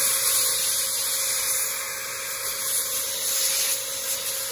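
Rechargeable electric air duster running flat out, a loud steady rush of air over a constant motor whine, blowing through a nozzle attachment into a graphics card's cooler.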